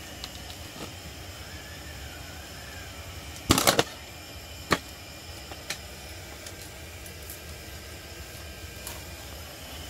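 Knocks and thuds of raw pig's head meat being handled and set down on a cutting board. The loudest is a quick cluster a little over three seconds in, followed by single knocks about one and two seconds later, over a steady low hum.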